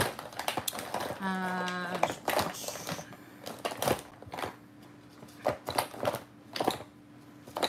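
Plastic glitter vials and jar lids clicking and clattering against each other as gloved hands rummage through a tub of them, with a short hummed note about a second in.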